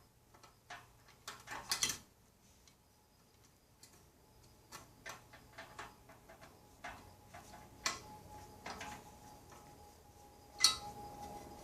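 Scattered clicks and light taps of plastic fan parts being handled and fitted together during assembly, with one sharper click near the end.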